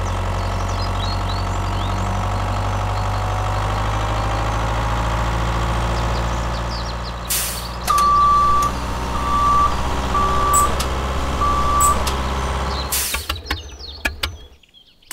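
Heavy truck engine running steadily, then a reversing alarm beeping four times about a second apart. A short air hiss comes just before the beeps and another after them, like air brakes.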